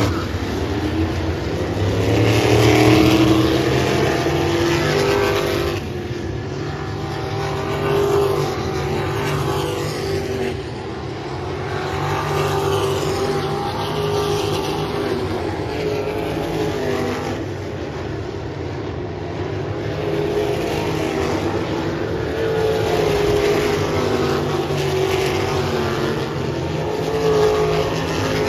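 Wingless sprint car engine at speed on a qualifying run, alone on the track. Its pitch rises and falls again and again as the car goes around the oval.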